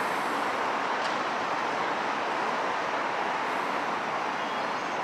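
Steady running noise of trains moving through a busy railway station, with a faint high wheel squeal about three and a half seconds in.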